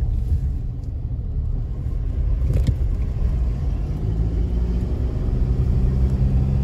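A car driving, a steady low rumble of engine and road noise, with an engine hum that settles into a steady tone about four seconds in. There is a single short knock about two and a half seconds in.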